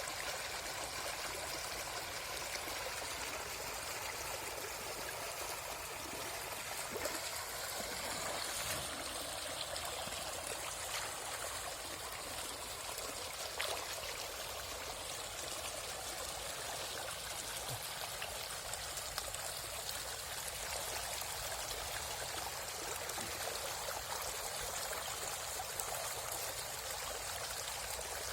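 River water flowing steadily, a constant rushing hiss with a few faint knocks.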